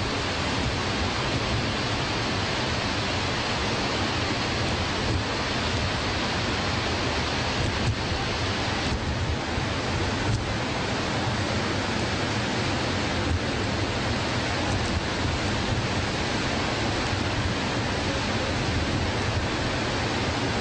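Niagara Falls: a steady, deep rush of falling water.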